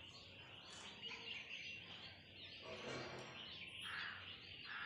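Faint chirping of birds in the background.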